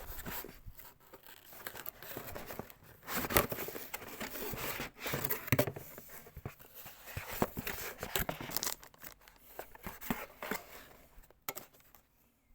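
Cellophane wrap being torn and crumpled off a product box by hand: irregular crinkling and crackling with a few sharp snaps, fading out near the end.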